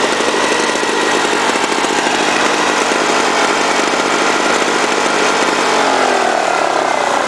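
1979 Lawn-Boy 5277's F100 two-stroke engine running fast and steady, with a whine that the owner suspects could come from bad bearings. Its pitch dips toward the end.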